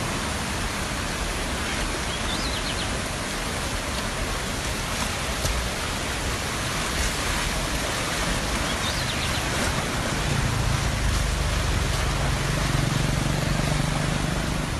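Steady rushing noise of a swollen, fast-flowing floodwater river. A low hum comes in about ten seconds in, and two faint high chirps sound, one early and one about two-thirds through.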